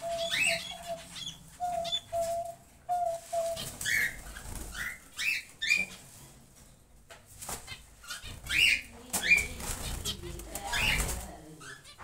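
Caged diamond doves: a soft coo repeated in short even notes over the first few seconds. Short, high rising chirps come from small birds throughout, with bouts of wing flapping and rustling in the second half.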